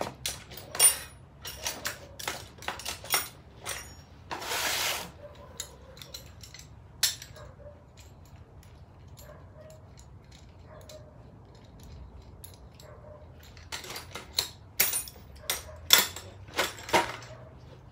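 Metal tools clinking and clattering in scattered sharp clicks, bunched near the start and again toward the end, with a short rush of noise about four and a half seconds in.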